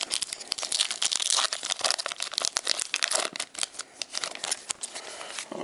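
Foil wrapper of a Pokémon trading card booster pack crinkling and tearing as it is torn open by hand, a rapid run of sharp crackles, with the cards slid out of the open pack.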